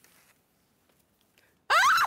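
Near silence, then about three-quarters of the way in people break into high-pitched shrieks of laughter, with the pitch sliding up and down.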